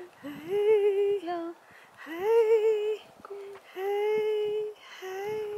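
A woman's voice singing a slow, lullaby-like tune in long held notes, each about a second, with short breaks between them.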